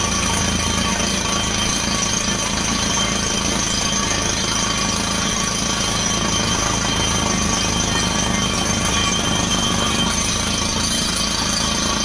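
Truck-mounted down-the-hole water well drilling rig and its air compressor running under test: a loud, unbroken machine noise with steady high whining tones over it.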